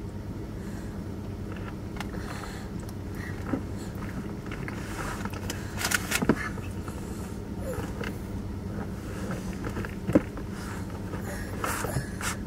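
A car running while parked, heard inside the cabin as a steady low hum, with a few soft clicks and rustles on top.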